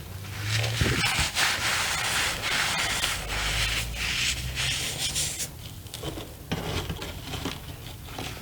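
Soft reformed cornstarch being crushed and squeezed in the hand: dense crunching and crumbling for about five seconds, then softer, scattered crackles.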